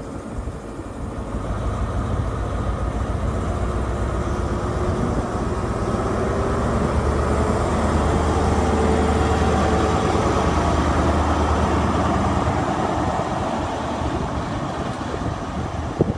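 An InterCity 125 (HST) Class 43 diesel power car running past at low speed on its MTU V16 engine. The engine note swells from about a second in, holds through the middle and eases off near the end as the coaches follow.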